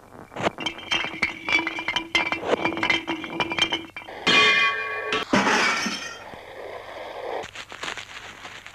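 A rapid run of sharp clinks and cracks, then two louder, noisier bursts about four and five seconds in.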